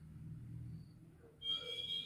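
A bird calls, starting sharply about one and a half seconds in with a clear high note, over a low rumble.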